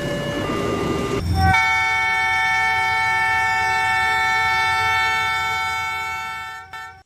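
Train horn sounding one long blast that starts about a second in, holds steady for about five seconds and fades out near the end, over a low train rumble. Before the blast, an alternating two-note tone is heard.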